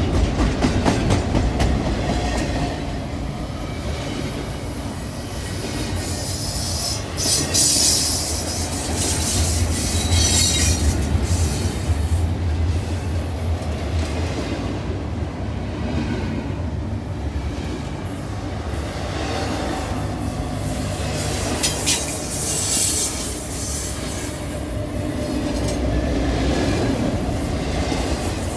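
Double-stack intermodal well cars of a freight train rolling past close by, a steady rumble of wheels on rail. Brief high-pitched wheel squeals rise out of it several times.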